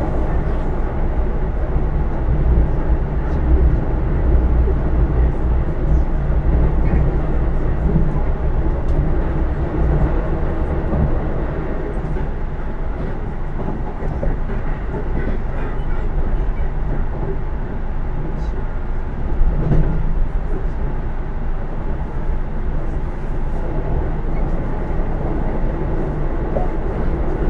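Running noise of a Keisei AE100-series electric train heard from inside the passenger car: a steady low rumble of wheels and running gear on the rails, with faint ticks and a brief louder swell about twenty seconds in.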